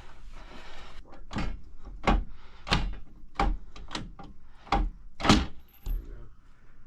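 Irregular metal clunks and knocks from a steel home safe, about a dozen in all, the loudest a little after five seconds in.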